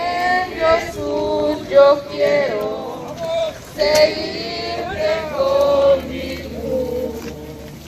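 Men and women singing a slow hymn together in Spanish.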